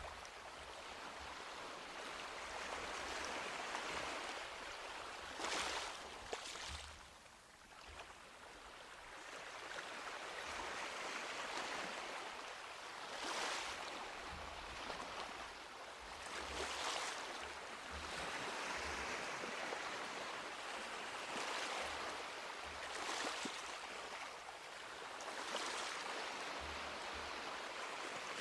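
Sea waves breaking and washing up on a beach, a steady surf with a louder wave rolling in every few seconds.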